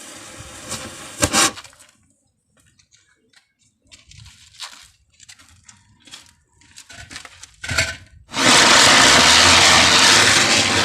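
Firecrackers and burning matchsticks: two sharp cracks, then scattered crackling pops, then a loud steady hiss lasting about two and a half seconds near the end.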